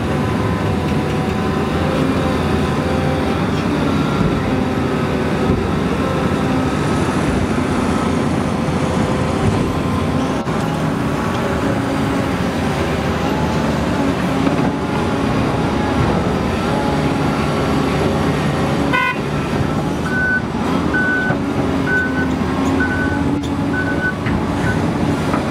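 Komatsu PC800LC hydraulic excavator's diesel engine running under load as it digs, swings and dumps a bucket, its pitch shifting slightly with the work. Near the end a reversing alarm sounds a string of short high beeps, a little under one a second.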